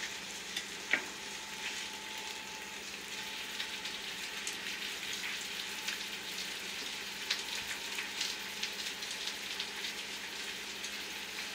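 Steak searing in a frying pan: a steady fat sizzle full of small crackles and pops, with one sharper click about a second in.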